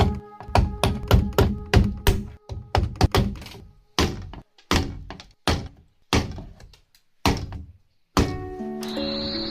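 Repeated sharp wooden knocks of blows struck on bamboo, about three a second at first, then slowing to single knocks spaced more than half a second apart before stopping. Background music with sustained notes comes in near the end.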